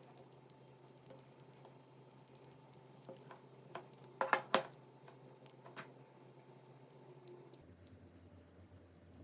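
A few light clicks and taps of small hard parts or tools being handled on a work surface, with a quick cluster of sharper clicks about four and a half seconds in, over a low steady hum.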